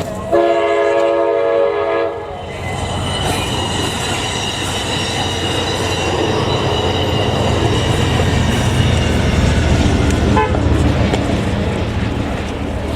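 A train horn blares for about two seconds. Then a train rumbles past, loud and steady, with a high thin whine over it, growing louder toward the middle and easing off near the end.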